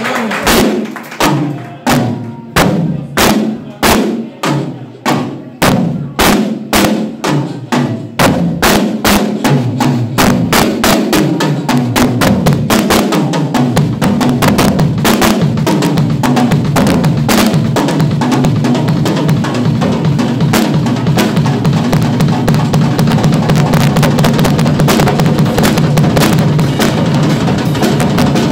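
Drum solo on a rock drum kit, played live. It opens with separate heavy hits about twice a second, each ringing out, then speeds up from about eight seconds in into a fast, unbroken roll that carries on to the end.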